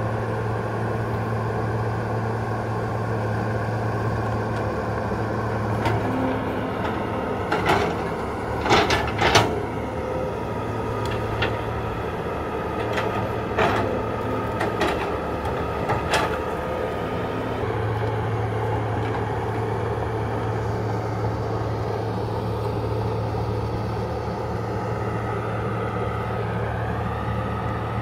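Hydraulic excavator's diesel engine running steadily with a low hum, with a cluster of sharp metallic clanks in the middle and a rising whine near the end.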